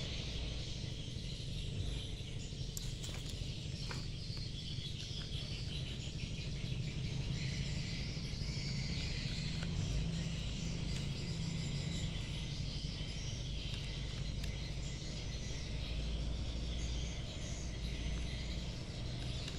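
Steady low background hum and high hiss, with faint chirping and a few light clicks.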